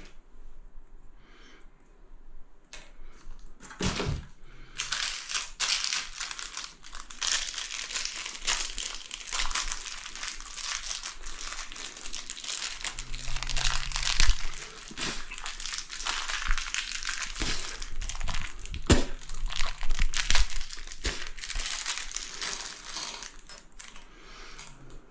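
Plastic packaging crinkling and rustling steadily as it is handled and opened, with a few sharp clicks among it.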